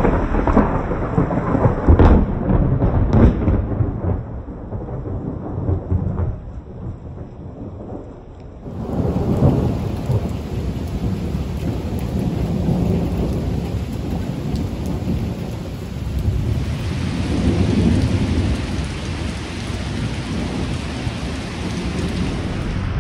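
Thunder from a severe thunderstorm rolls and cracks loudly for the first few seconds and dies away, then a second rumble sets in about nine seconds in. Steady rain falls throughout and grows heavier in the last third.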